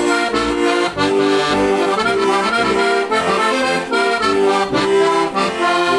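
Juraj Krahulec heligónka, a Slovak diatonic button accordion in C–F with four-voice treble, playing an instrumental folk melody over a steady rhythmic bass-and-chord accompaniment.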